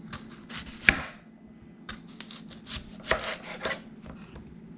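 Kitchen knife slicing through a white onion onto a wooden cutting board: a handful of crisp cuts at uneven spacing, the sharpest about a second in.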